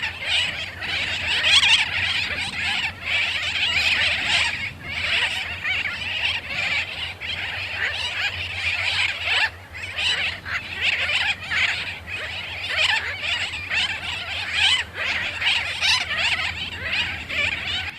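A sooty tern colony calling: many birds' raucous calls overlapping in a dense, continuous din, the sound of terns courting mates and defending their territories.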